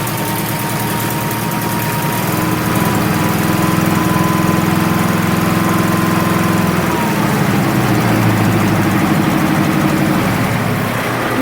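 Portable sawmill's engine running just after a choke start. Its speed picks up about two seconds in and drops back about seven seconds in, with a thin whine that rises and falls with it.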